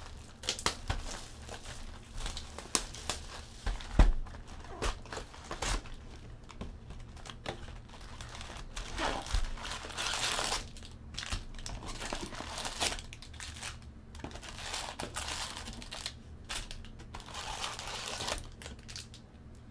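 Plastic shrink-wrap crinkling and tearing as it is stripped off a cardboard trading-card box, then foil card packs rustling as they are lifted out. The rustling comes in irregular bursts, with one sharp thump about four seconds in.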